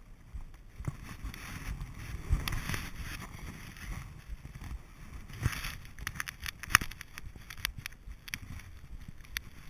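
Wind buffeting a paratrooper's GoPro microphone during a parachute descent: a rough, steady rumble. A run of sharp clicks and rustles about two-thirds of the way in comes from the arms and gear moving against the camera.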